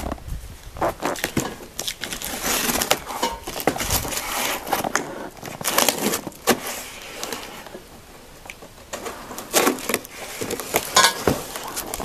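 Cardboard shipping box being torn and pulled open by hand: irregular ripping, scraping and rustling of cardboard, with a few sharper knocks near the end.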